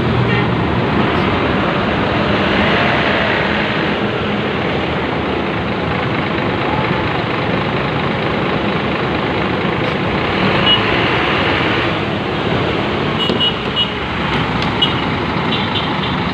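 Diesel engine of a Scania bus running close by, a steady even engine noise mixed with street traffic.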